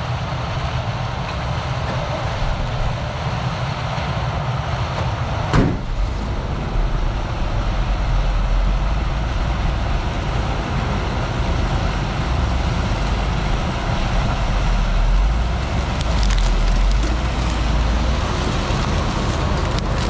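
Farm vehicle running steadily, with a short sharp knock about five and a half seconds in and a heavier low rumble from soon after.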